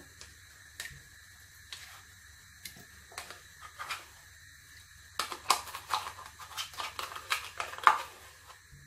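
A metal teaspoon scraping and tapping inside a plastic yogurt pot as the yogurt is spooned out into a jug of milk: scattered light clicks at first, then a quicker run of scrapes and taps from about five seconds in.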